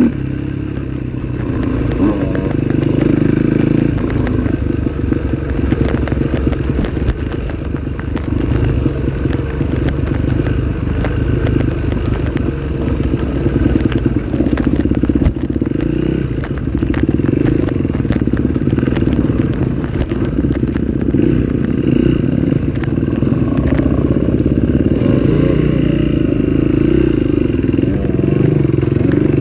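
Trail motorcycle engine running under riding, its revs rising and falling, with rattling and clattering from the bike over rough ground.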